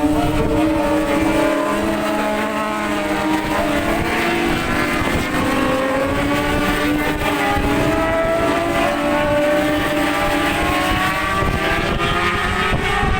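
Engines of 600cc supersport racing motorcycles at high revs as the pack runs round the circuit, the pitch slowly rising and falling as the bikes pass and change speed. Wind buffets the microphone underneath.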